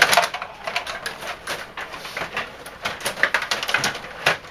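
Rapid, irregular clicking and clacking of a table hockey game in play: rods being spun and pushed and plastic players and puck knocking against each other.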